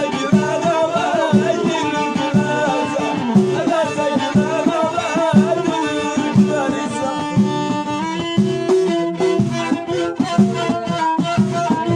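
Traditional folk music played live: a wavering bowed-string melody over a steady drum beat, the melody changing to longer held notes about two-thirds of the way through.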